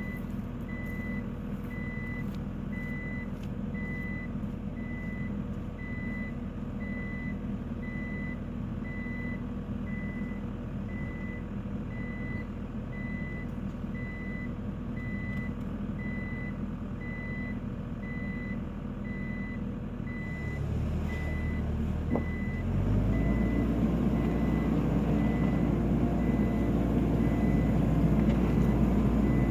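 Diesel skid steer's backup alarm beeping in an even pulse over the running engine. About twenty seconds in the beeping stops, and the engine then revs up louder under load.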